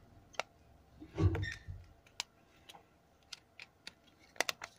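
Light clicks and taps of fingers handling the plastic housing of an opened Nokia 105 phone, with a brief louder handling noise about a second in and a quick run of sharp clicks near the end.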